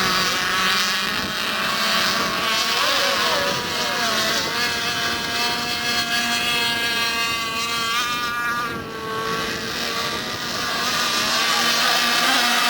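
Several radio-controlled racing boats' small engines running at once as high-pitched whines that keep shifting in pitch. One rises and falls about two-thirds of the way through as a boat passes.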